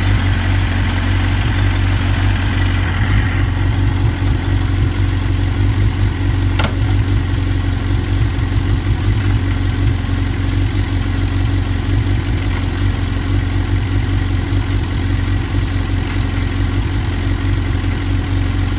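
Suzuki GSX-R1000 K1's inline four-cylinder engine idling steadily, with a single sharp click about six and a half seconds in.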